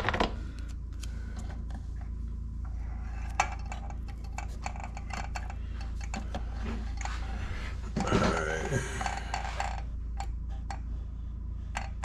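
Light clicks and ticks of hands handling wrapping thread and tape on a fishing rod blank in a rod-wrapping stand, over a steady low hum. A brief louder sound with a wavering pitch comes about eight seconds in.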